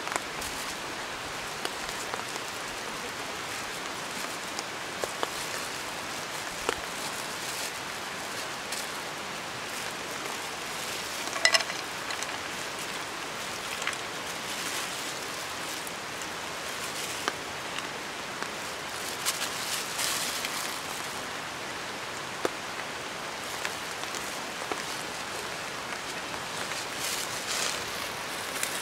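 Steady rain falling, with scattered drips and small ticks. A brief clatter about eleven and a half seconds in is the loudest sound.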